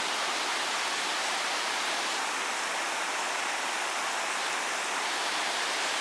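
Waterfall rushing with a steady, even noise that does not let up.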